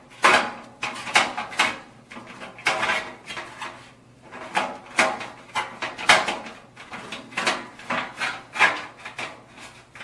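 Screwdriver working the screws out of a sheet-metal blower housing: a run of irregular metal clicks and scrapes, about one or two a second.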